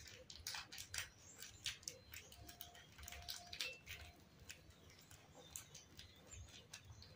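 Baby macaque eating from a plate: a run of faint, quick clicks and taps from its hands and mouth on the food and dish, thinning out after about four seconds.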